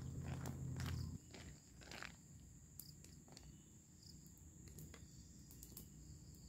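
Insects buzzing steadily in one thin high tone, with scattered light clicks and scrapes of a wooden spoon stirring snails in a wok. A low hum stops about a second in.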